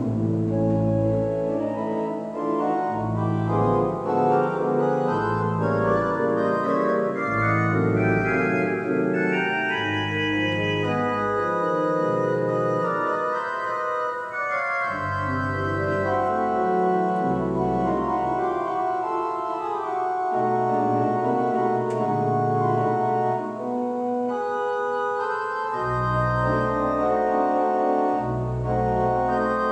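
Pipe organ (the Kney/Gober organ) playing a tango: deep bass notes sound in a repeating pattern under sustained chords and a melody line.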